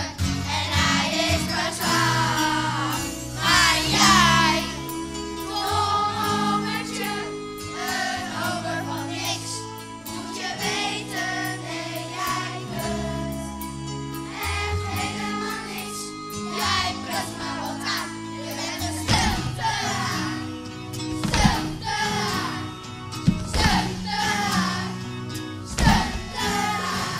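A group of children singing a song together over an instrumental accompaniment, with a few sharp percussive accents in the second half.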